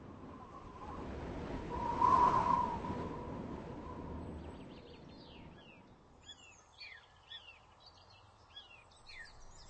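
A swell of rushing noise with a faint held tone in it rises to a peak about two seconds in and fades away. From about halfway on, a small bird chirps in short, quick falling notes.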